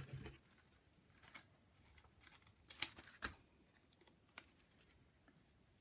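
Handmade paper washi tape being peeled off its sheet and handled: quiet rustling with a few short, sharp crackles, the loudest about three seconds in.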